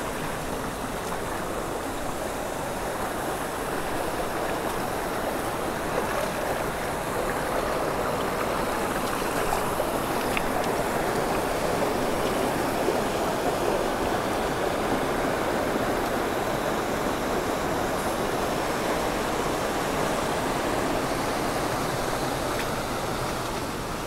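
Water of a shallow, rocky stream rushing over stones and a small cascade: a steady rush that swells a little in the middle.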